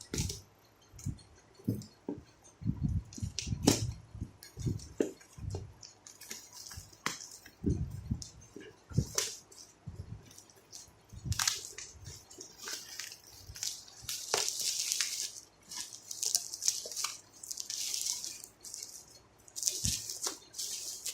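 A VR headset's cardboard box and packaging being opened by hand: irregular taps and thumps of the box, then repeated rustling of the wrapping from about a quarter of the way in.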